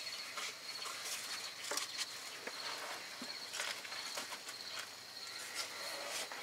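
Faint steady high buzz of insects, with scattered light clicks and taps.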